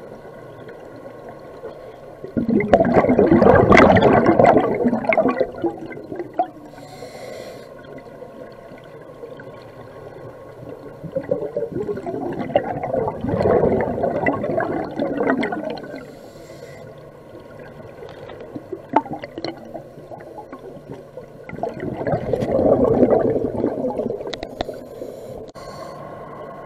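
Scuba diver breathing through a regulator underwater: three long bubbling exhalations, each about three seconds and roughly ten seconds apart, with short soft hissing inhalations between them.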